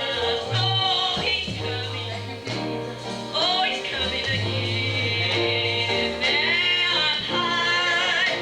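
Gospel song performed live in church: singing over a band, with a bass line holding long low notes that change every second or two.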